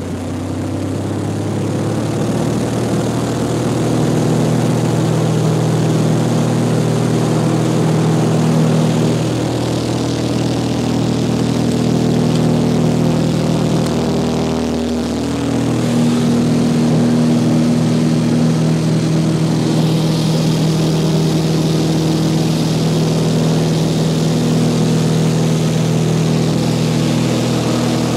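1979 Cessna 182Q Skylane's six-cylinder Continental O-470 engine and propeller heard from inside the cabin, building to full takeoff power over the first few seconds and then running steadily through the takeoff roll and climb-out. The sound dips briefly about fifteen seconds in.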